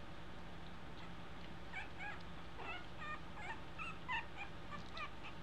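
Two-week-old American Eskimo puppies whimpering: a run of short, high squeaks starting about a second and a half in.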